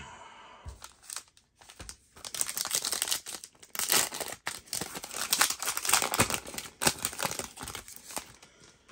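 Foil-lined Topps Chrome Sapphire trading-card pack wrapper being torn open and crinkled by hand. A brief rustle at the start gives way, about two seconds in, to dense crackling and crinkling of the foil that lasts until near the end.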